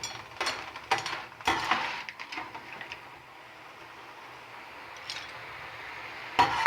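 A metal utensil knocking against a paella pan several times as cooked seafood is lifted out, over the steady sizzle of oil in the pan; one more knock near the end.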